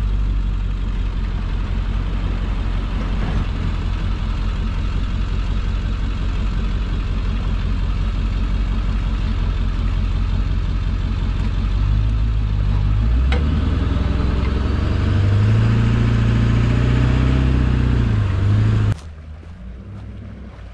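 Pickup truck engine running with a steady low rumble, heard from the driver's window, then revving higher for several seconds near the end. The sound cuts off abruptly to a much quieter background.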